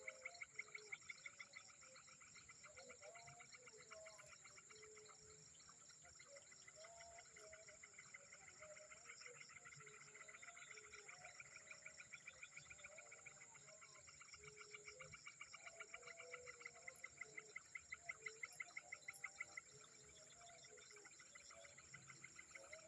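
Faint chorus of frogs and insects in a peat swamp: fast pulsing trills and a steady high whine, with short lower calls scattered throughout.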